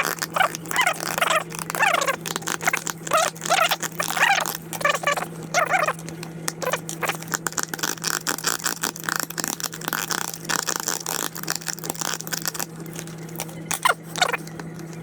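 A razor blade is shaving the edge of a plastic battery-box opening, widening it to take a USB charger port's threads. It gives short squeaky strokes at first, then several seconds of quick, rapid scraping, with two sharper strokes near the end. A steady low hum runs underneath.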